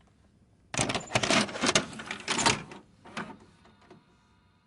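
A rapid, irregular clatter of knocks and rattles, starting about a second in and lasting about two and a half seconds.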